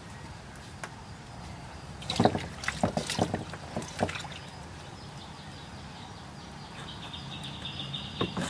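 Hands swishing green chillies around in water in a metal basin, with a cluster of splashes and knocks about two to four seconds in.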